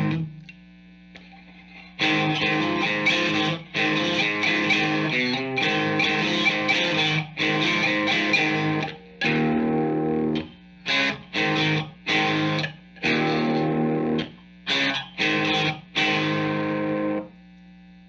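Heavily distorted electric guitar played through a Marshall amp head and speaker cabinet. After a low hum in the first two seconds, long held chords ring for several seconds, then give way to short chopped chords with brief silences between them.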